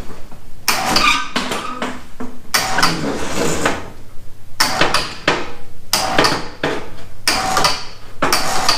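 Steel snow plow clanking and rattling in repeated bursts, about one a second, as it is lifted off the workbench. A low steady hum joins in about three seconds in.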